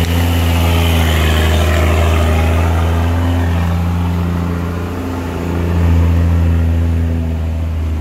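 Diesel engine of a loaded Hino dump truck pulling away on a gravel road, with a deep steady note that dips about five seconds in and picks up again.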